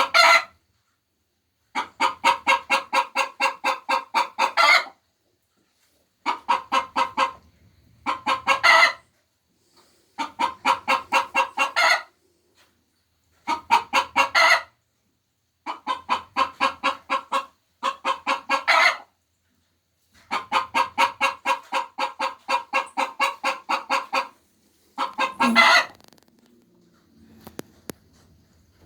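Hens cackling the egg song: repeated bouts of rapid clucks, about four a second, each bout ending in a louder drawn-out squawk, with short pauses between.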